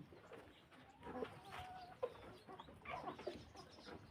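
A flock of chickens clucking softly while feeding, with scattered short calls and small pecking clicks.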